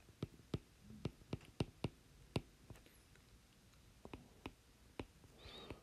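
Stylus tip tapping on a tablet's glass screen during handwriting: a run of faint, sharp, irregular ticks, sparser around the middle.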